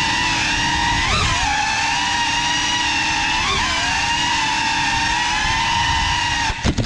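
Brushless motors and propellers of a GEPRC Cinelog 35 ducted FPV cinewhoop whining steadily in flight, the pitch swooping up and back twice with quick throttle changes. Near the end a few sharp knocks and the motor whine cuts off suddenly: the drone crashes.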